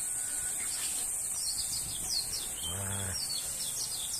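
A steady high-pitched buzz of insects, with many short, quick falling chirps coming in after about a second and a half. A brief low hum sounds about three seconds in.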